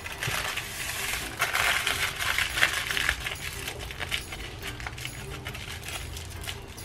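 Aluminium foil crinkling and rustling with many small crackles as hands twist the ends of a foil-wrapped roll shut, loudest for about a second and a half starting about a second and a half in.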